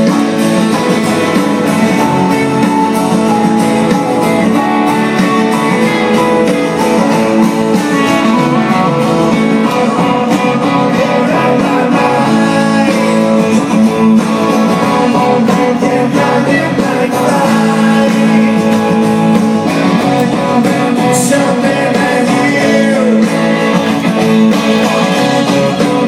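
A live rock band playing through a concert PA, recorded from far back in the audience: strummed guitars with singing over them, loud and continuous.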